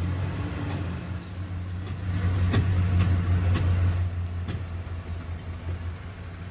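An engine running steadily with a low, even hum, a little louder from about two seconds in, with a few faint clicks.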